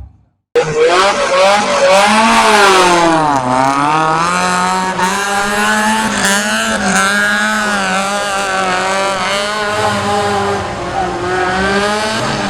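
Off-road competition 4x4's engine revving hard under load, its pitch dipping about three seconds in and climbing again before holding steady.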